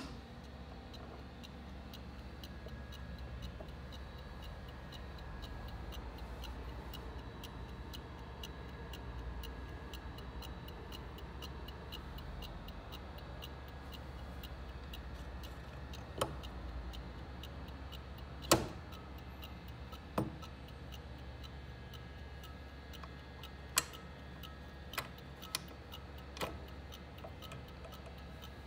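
Marine chronometer by Dent, c.1900, ticking: steady, evenly spaced ticks from its movement. A few louder clicks and knocks stand out in the second half, the loudest about two-thirds of the way through.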